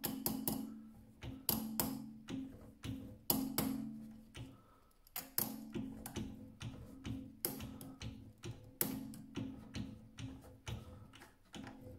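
Light hammer taps on the steel and cast-iron parts of a mini lathe's saddle and toolpost, an irregular series of about two taps a second. Each tap gives a short pitched metallic ring, as the parts are knocked into alignment against a dial indicator.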